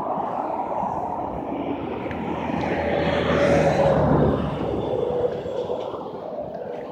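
A passing vehicle's engine noise, swelling to a peak about three to four seconds in and then fading, with a faint steady hum in it.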